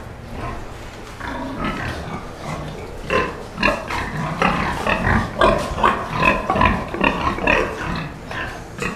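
Pigs grunting repeatedly in short calls, sparse at first and coming thick and fast from about three seconds in.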